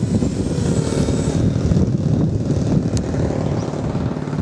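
Eachine Falcon 185 racing quadcopter's motors and propellers buzzing in flight, with a high whine that drops away about a second and a half in. Heavy wind rumble on the microphone runs under it throughout.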